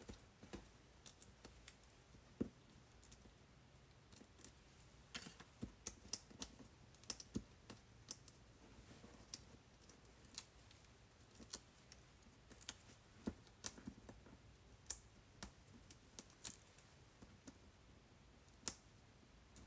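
Faint, irregular clicks and light taps of fingertips and fingernails pressing small paper hexagons, mounted on mini foam adhesive dots, onto a card front, roughly one or two clicks a second.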